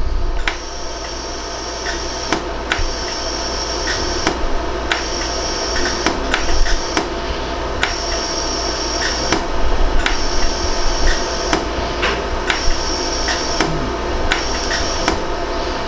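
100-joule iWeld pulsed jewelry laser welder firing a steady series of shots, each a sharp click, a little more than one a second, over the machine's steady hum. These are the low-power shots smoothing out the weld of a 14K yellow gold post on a pearl earring.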